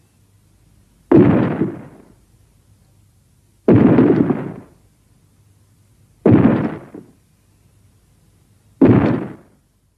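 Four short, sudden blasts of noise about two and a half seconds apart, each dying away within a second: a creature sound effect from a Griffon kaiju sound set.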